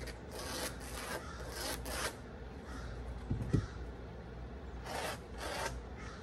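Pencil drawing marking lines along a 2x4 held against the wall: a quick run of short scratchy strokes, then two more near the end.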